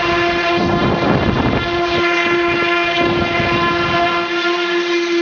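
Steady, horn-like drone with many overtones from the bicycle's RC-plane motor and 12-inch propeller running, with swells of rushing air about a second in and again about three seconds in.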